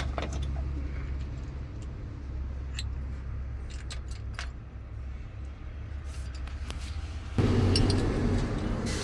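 An engine on a repair stand running steadily, with light metallic clinks over it. About seven and a half seconds in, it suddenly gets louder.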